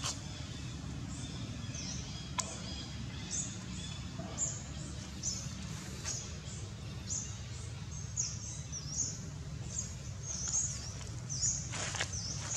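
Birds chirping over and over in short high chirps, several a second at times, over a steady low outdoor rumble. A sharp click sounds about two and a half seconds in, and a louder one near the end.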